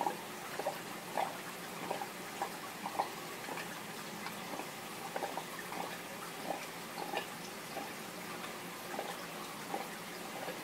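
Aquarium water bubbling and dripping: a steady hiss with irregular small plops, one or two a second.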